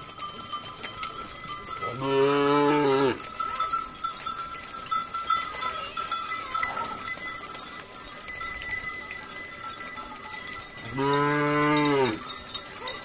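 Cattle mooing twice, each a single long moo of about a second, one about two seconds in and one near the end, over a steady ringing of cowbells.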